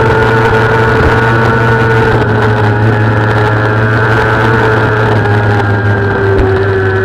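Kawasaki ZX-6R's inline-four racing engine heard on board at speed, holding high revs steadily, its pitch easing slightly lower near the end.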